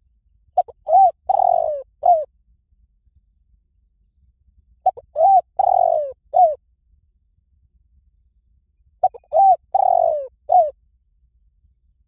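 Spotted dove cooing: three phrases about four seconds apart, each a quick run of short coos around one longer coo that falls in pitch.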